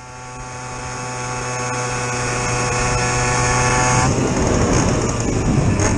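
Suzuki PV moped's 50cc two-stroke single-cylinder engine running at a steady pace while riding, fading in at the start. About four seconds in, the steady engine note breaks up into a rough, noisy rumble.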